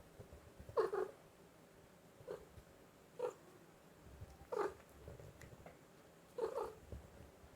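Domestic cat giving five short calls, each a fraction of a second long and spaced about a second apart, the first the loudest.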